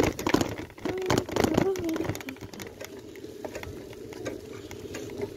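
A bicycle being ridden over grass and a paved path, its steady rattling whirr broken by sharp clicks and knocks from the bumps. A voice calls out briefly in the first two seconds.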